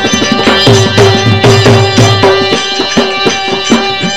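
Instrumental interlude of Aalha folk music: a hand drum beats a quick, steady rhythm under held melody tones, between sung verses.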